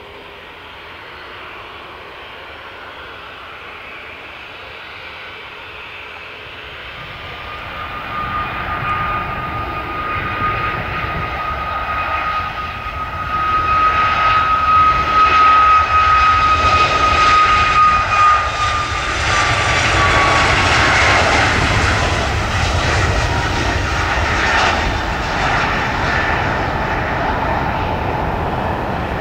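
Boeing 737 airliner's jet engines as the plane passes close by: the sound builds over several seconds to a peak in the middle, and a steady high whine drops in pitch as the aircraft goes past, leaving a rumble.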